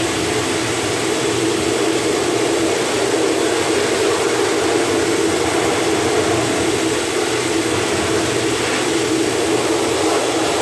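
Pet grooming blow dryer running steadily, blowing air through its hose nozzle into a Pomeranian's coat: a continuous rush of air with a steady hum.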